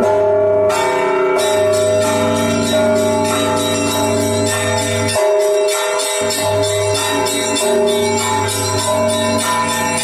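A peal of church bells: smaller bells struck rapidly, several strikes a second, over the sustained ringing of larger bells.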